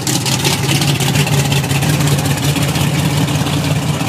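Drag racing car's engine idling loudly and steadily as the car rolls up to the starting line.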